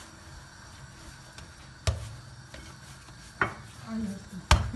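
Yeast-free börek dough being rolled and pressed by hand on a granite countertop, with three sharp thumps of dough and hands against the stone about two, three and a half and four and a half seconds in, the last the loudest.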